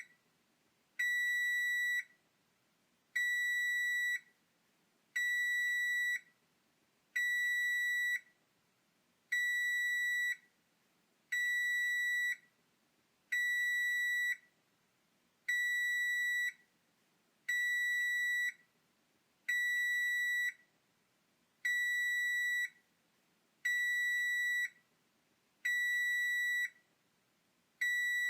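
Oven timer alarm going off: a high-pitched electronic beep, each about a second long, repeating steadily about every two seconds, signalling that the food in the oven may be done.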